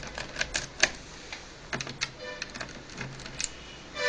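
Irregular sharp clicks and taps of a bit screwdriver turning a screw in the plastic base of an HP 540 laptop, about a dozen over a few seconds, the loudest about a second in and again about two seconds in.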